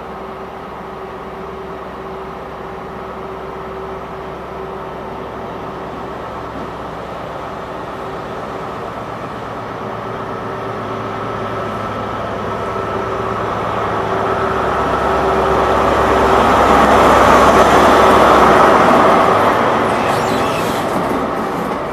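Class 43 HST diesel power car, with its MTU 16V4000 engine, pulling away from a station. It grows steadily louder as the power car approaches, is loudest as it passes about three-quarters of the way through, then eases into the rolling of the coaches going by.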